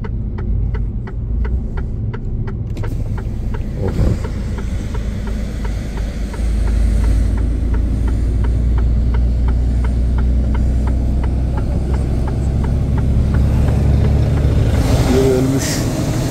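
Steady low rumble of a Mercedes-Benz truck's engine heard in the cab, with the indicator ticking evenly about three times a second. The engine gets louder about six seconds in, and the ticking dies away near the end.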